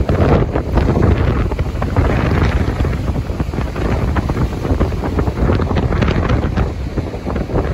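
Wind buffeting the microphone, with the wash of breaking sea waves and surf underneath.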